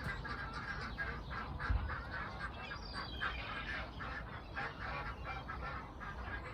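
Domestic geese and ducks calling in a rapid run of short honks and quacks, several a second. A brief low thud just under two seconds in.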